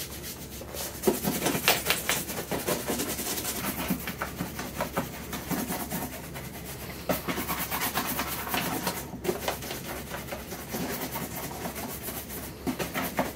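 Bristle brush buffing the leather uppers of a horsehide boot with rapid back-and-forth strokes, with a short pause about nine seconds in.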